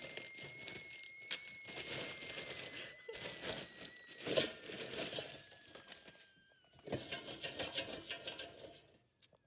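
Crackling, rustling handling noise as a phone's microphone is moved about and rubbed, in irregular clicks and scrapes, with a faint high whine underneath that slowly drops in pitch.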